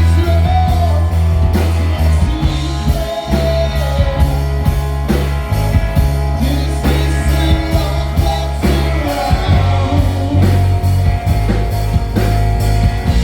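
A rock band playing live, with a heavy bass line, steady drum beats and electric guitar.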